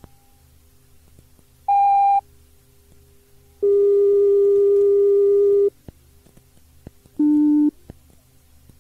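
Three electronic tones from a Shinkansen announcement cassette: a short higher beep about two seconds in, a longer lower tone of about two seconds, then a short still lower beep. A faint low hum lies under them throughout.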